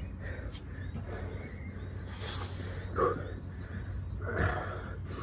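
Heavy breathing from a man winded after a set of jump squats, with a few sharp, loud exhales.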